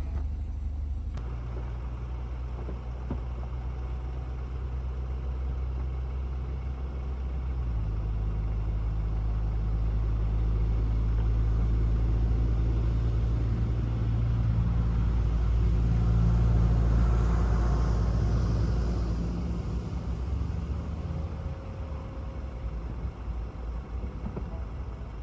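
BMW 428i Cabrio's retractable hardtop opening: its hydraulic pump hums steadily, the low tone shifting in stages about 1, 8, 14 and 20 seconds in as the roof folds, loudest in the middle and easing off near the end.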